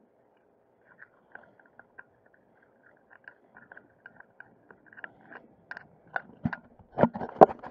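Irregular crackling knocks and taps on a small sailboat under way in choppy water, sparse at first and growing denser and louder toward the end.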